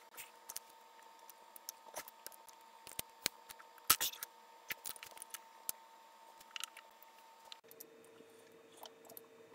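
Small plastic pieces of a Ghost Hand 4x4x4 puzzle cube clicking and tapping as they are handled and fitted onto its core, in scattered, irregular clicks. The loudest clicks come about four seconds in.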